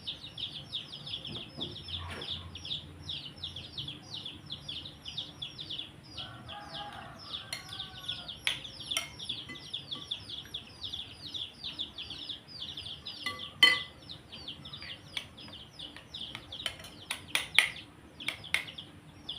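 A metal spoon clinking and scraping against a bowl while eating soup, in scattered sharp clicks, two louder near the middle and toward the end. Behind it runs a steady, rapid high chirping, about five chirps a second.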